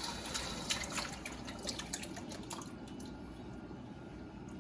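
Food sizzling in a hot pan, with a dense run of irregular crackles and pops over a steady hiss that thins out after about three seconds.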